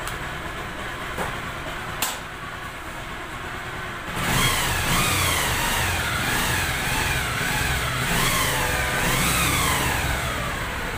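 Bajaj Pulsar 150's single-cylinder four-stroke engine, revved in repeated blips from about four seconds in, its pitch rising quickly and falling back about once a second. Two sharp clicks come before it.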